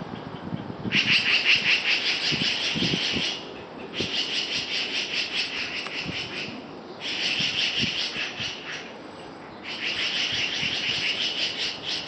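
Birds mobbing a cat with harsh, rapid chattering alarm calls, in four bouts of two to three seconds each with short pauses between: scolding a predator near their nest.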